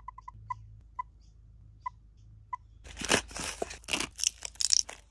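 Canon EOS M50 camera giving short high confirmation beeps as its menu is worked by touchscreen and buttons: a quick run of pips, then single ones about a second apart. From about three seconds in, a clear plastic blister pack is cut and torn open, a louder crinkling and crackling of stiff plastic.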